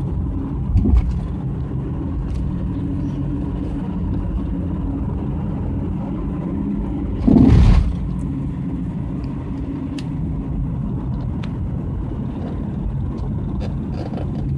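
Inside the cabin of a 2007 Subaru Tribeca B9 driving over a rough road: a steady low road rumble, a short thud about a second in and a louder thud about halfway through. The thuds are the front-end clunk of worn sway bar bushings, which sounds almost like a bad strut.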